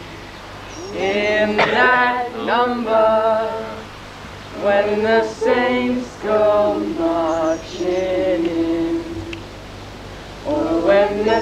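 Several voices chanting and singing out in sing-song calls, in bursts with short pauses and some notes held for about a second, over a steady low hum.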